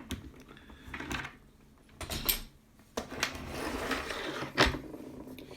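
Small tools and objects being handled and set down on a desk: a series of clicks and knocks with a stretch of rustling, the loudest knock coming about three-quarters of the way through.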